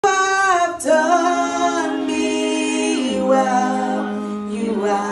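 A woman singing a slow gospel worship song into a microphone, holding long drawn-out notes that slide from one pitch to the next.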